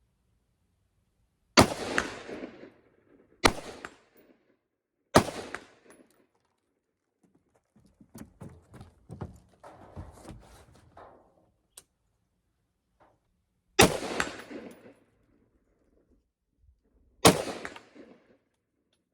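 Five rifle shots: three about two seconds apart, then a pause, then two more about three and a half seconds apart. Each shot has a short trailing echo. In the pause there is a run of quieter clicks and knocks.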